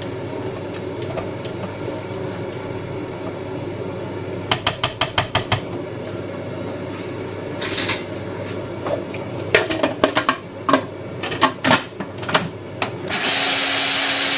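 Spatula scraping in a plastic food-processor bowl with a quick run of taps, then clicks and knocks as the bowl's lid is fitted. About a second before the end, the Decen food processor's motor starts and runs steadily with a low hum, blending courgette pesto.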